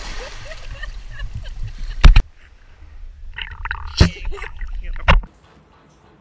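Sea water sloshing and splashing around a camera held at the water's surface, with a hiss and low rumble. About two seconds in, a sharp knock comes as the camera dips and the sound turns muffled and low. Two more knocks follow before the sound stops abruptly near the end.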